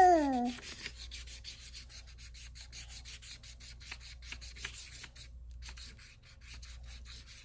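Felt-tip marker scribbled back and forth on a coloring-book page: a quick run of rubbing strokes, several a second, with a short pause about five seconds in.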